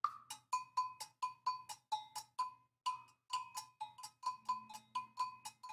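Percussion music: a bell-like metal percussion pattern struck in a steady rhythm of about four strokes a second, moving between two close pitches, over a faint low hum.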